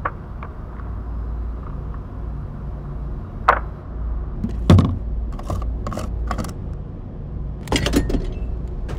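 Clicks and knocks of a car being refuelled: the fuel filler door opened by hand, then the gas pump nozzle handled at the pump, with a heavier knock about halfway through and a cluster of clicks near the end, over a low steady hum.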